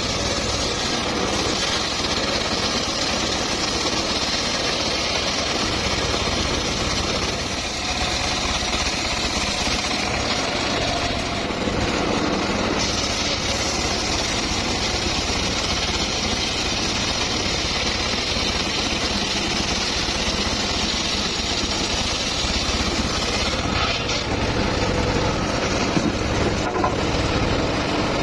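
Wood-sawing machinery running steadily while cutting mahogany, a dense, continuous engine-and-blade noise with no break.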